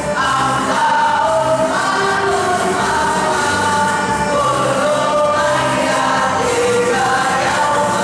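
A choir of boys singing together through stage microphones, in long held notes that step from one pitch to the next.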